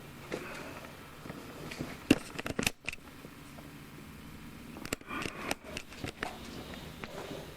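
Scattered clicks, light clatter and rustling, in two clusters about two seconds in and about five seconds in.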